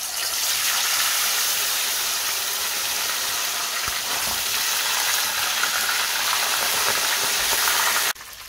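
Whole fish frying in hot oil in a deep pot: a dense, steady sizzling hiss as the fish are lowered in and the oil foams up. It cuts off suddenly near the end.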